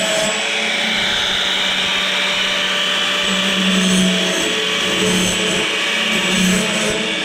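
A motor running steadily while a sawmill band blade is being sharpened tooth by tooth, with grinding noise over a constant hum that swells every second or so.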